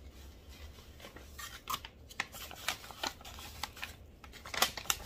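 Kraft paper wrapping rustling and crinkling in quick, irregular crackles as hands lift a paper-wrapped plant out of a cardboard shipping box. The sharpest crinkle comes near the end.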